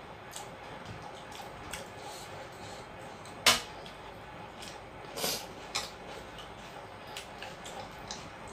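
A small bowl set down on a brass plate with one sharp clink about three and a half seconds in. Two softer knocks of tableware follow between five and six seconds in, over faint small clicks of eating by hand.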